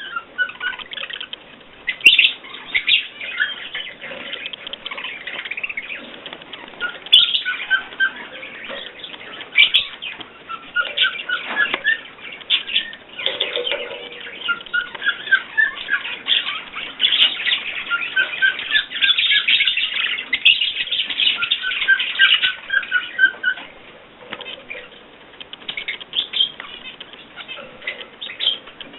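Pet cage birds chirping and chattering continuously, with several runs of quick repeated chirps.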